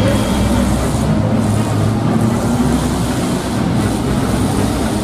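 Engines of several demolition derby cars running and revving together: a loud, steady engine noise.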